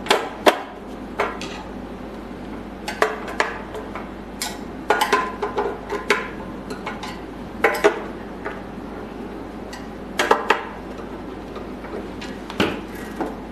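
Top cover panel of an AK Pro vacuum laminating machine being pushed back into place and screwed down. A dozen scattered sharp clinks and knocks from the panel and screwdriver sound over a steady low hum.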